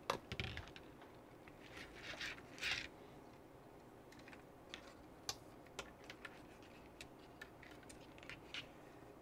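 Light clicks and rubbing of plastic and small metal parts handled by hand: an RC car steering servo and its plastic servo mount. There is a cluster of clicks near the start and a louder rustle about two to three seconds in, then scattered single ticks.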